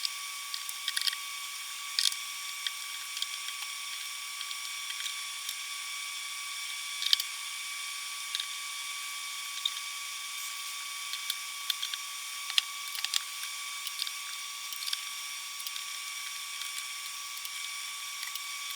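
Fast-forwarded sound of a loudspeaker being taken apart with hand tools: scattered quick clicks and taps over a steady high whine.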